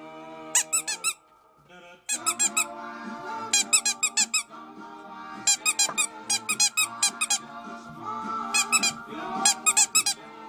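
A rubber squeaky toy squeaking in quick runs of three or four high squeaks, over and over, as a Yorkshire terrier puppy chews it. Background music with sustained notes plays underneath.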